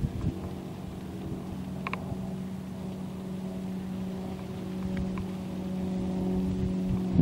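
A steady engine hum, slowly growing louder, with a few short high chirps about two and five seconds in.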